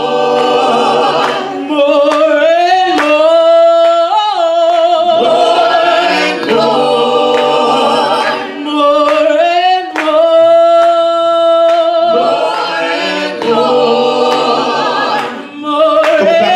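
Gospel vocal ensemble of five mixed male and female voices singing a cappella in close harmony. They hold long chords with vibrato, breaking every few seconds between phrases.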